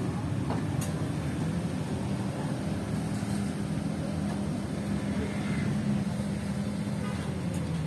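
Steady low engine-like hum with a couple of faint clicks.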